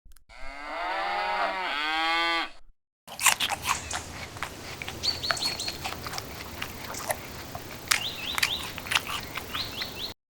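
A cow mooing once, one long call of about two and a half seconds. After a short pause comes an outdoor farm background: a steady hiss with scattered clicks, and small birds chirping a few times.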